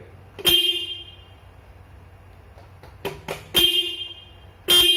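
Denso single-disc electric horn on a Yamaha Aerox 155 scooter sounding in short blasts of one steady tone: one honk about half a second in, then two quick toots and two more honks in the last two seconds.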